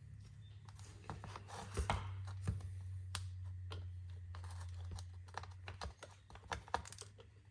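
Light clicks and taps of a flintlock pistol's brass barrel and wooden stock being handled and fitted together, then a run of small ticks and scrapes from a screwdriver working the grip cap screw at the butt. A steady low hum runs underneath.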